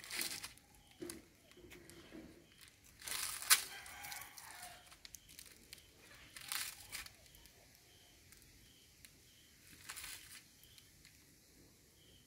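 A plastic snack packet crinkling as a macaque handles it and picks food out, in several short bursts: right at the start, a louder run about three seconds in with one sharp crackle, again near the middle and about ten seconds in.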